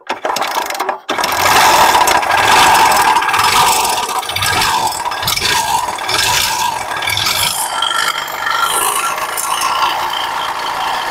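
Bajaj Platina 100's single-cylinder four-stroke engine starting after about a second of cranking, then running with a loud, harsh mechanical rattle from inside the engine that the level wavers with. The mechanic takes it for a broken crank-assembly bearing, and the engine stalls when the throttle is let off.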